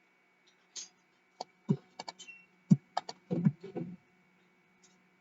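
Computer keyboard and mouse clicks: a scattered run of taps, bunched between about one and four seconds in, over a faint steady electrical hum.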